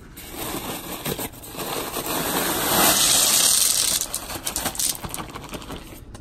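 A bag of river rock being poured out onto a bed of pebbles: a continuous clattering rush of small stones, loudest about halfway through and thinning to scattered clicks near the end.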